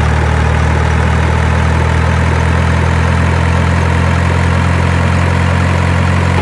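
Heavy truck engine idling steadily, a recorded engine sound effect laid over the toy truck footage, with a constant low hum that neither revs nor changes.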